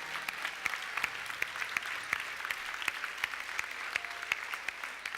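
Congregation applauding, many hands clapping at a steady level.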